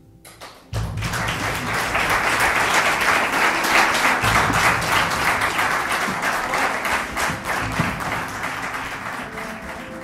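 Audience applauding: many hands clapping together, starting suddenly about a second in and thinning out near the end, with music playing softly underneath.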